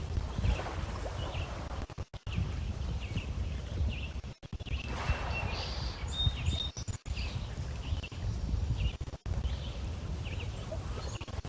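Small lake waves washing against shoreline stones, with wind rumbling on the microphone and birds chirping repeatedly throughout.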